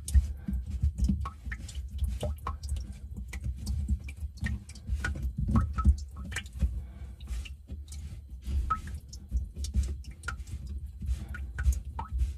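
Irregular small clicks and taps of plastic drain fittings being handled and fitted: hands working the slip nut and tailpiece of a white plastic sink drain trap.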